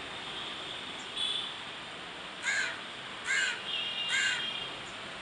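A crow cawing three times in a row, evenly spaced under a second apart, after a shorter, fainter call about a second in.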